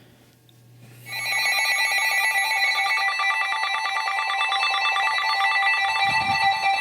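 Electronic emergency-alert tones start about a second in and keep going: several high, buzzy pitches sounding together and pulsing rapidly, the attention signal that opens a broadcast weather warning.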